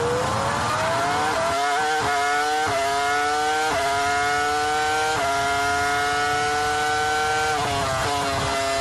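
Ferrari F2004's 3.0-litre V10 Formula One engine heard from the onboard camera, accelerating hard through a quick run of upshifts, each a brief dip in pitch. It holds a high steady note on the straight, then falls in several quick steps as it downshifts under braking near the end.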